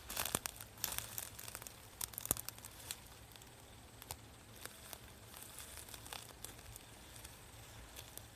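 Irregular crackling and clicking, thick for the first three seconds and then only now and then, over a faint steady low hum. This is the kind of strange noise that the uploader reports getting onto the smartphone recording close to the cedars.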